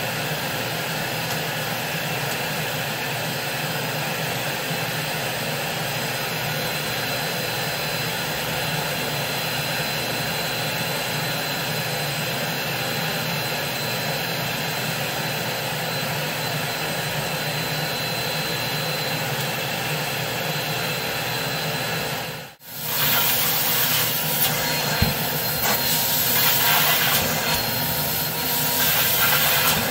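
Steady drone of a motor-driven cleaning machine with a thin steady whine. About 22 seconds in the sound cuts out for an instant, then a louder, hissier rush follows: a carpet extractor's wand drawing water out of a rug.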